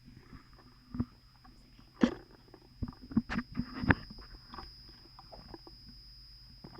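Close-up eating sounds: chewing with a cluster of sharp, crunchy bites and mouth clicks about two to four seconds in.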